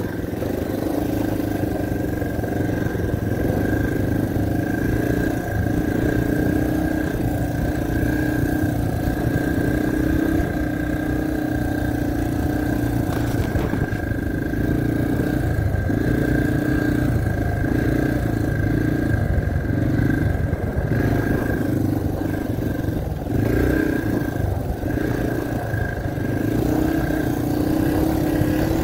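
Yamaha dirt bike's engine running steadily under way, with brief dips in the engine note now and then as the throttle eases off.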